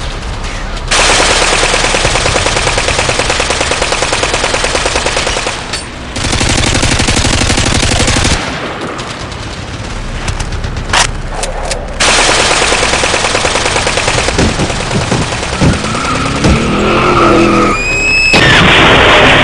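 Rapid automatic gunfire sound effects in several long bursts with short lulls between them. Near the end come a few gliding tones and a loud rush of noise.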